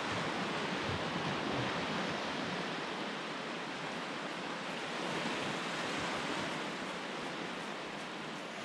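Steady wash of surf on a sandy shore, swelling and easing slightly.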